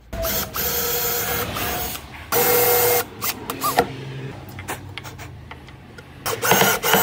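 Bosch cordless drill-driver driving screws into pine, running in bursts: about two seconds, then a shorter, louder burst, then another short burst near the end. Scattered clicks and knocks come between the bursts.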